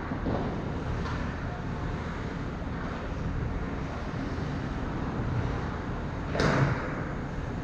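Ice rink ambience: a steady low rumble with faint, distant hockey play. About six seconds in there is one short, sharp scrape or knock.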